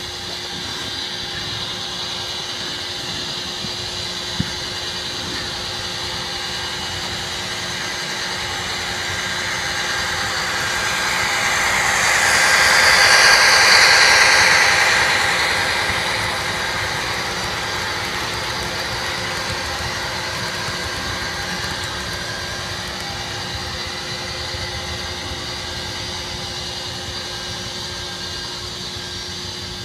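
HO-scale Athearn ready-to-run SD40R model diesel locomotive with basic 2009-era onboard sound, playing a steady diesel-engine loop. The sound swells as the train rolls close past about halfway through, then fades again, with a single click about four seconds in.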